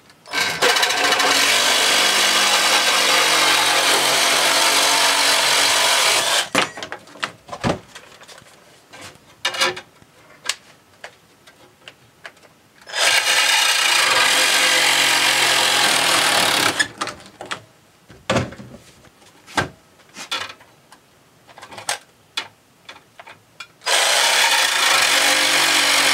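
Reciprocating saw with a metal-cutting blade cutting through a perforated metal strip, in three runs: a long one at the start, a shorter one in the middle, and another starting near the end. Between runs there are scattered clanks and knocks as the strip and saw are handled.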